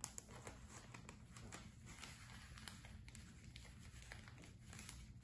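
Faint crinkling and light ticks of baking paper being handled as a cream-spread sponge is rolled up in it into a Swiss roll.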